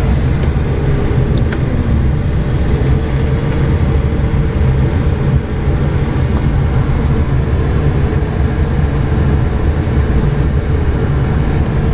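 Steady rushing airflow over the canopy and fuselage of a Schempp-Hirth Arcus E glider in flight, heard inside the cockpit.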